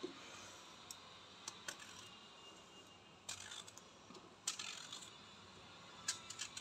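Small kitchen knife cutting a raw green eggplant held in the hand into thin lengthwise slices: faint, scattered clicks and cuts, a few seconds apart.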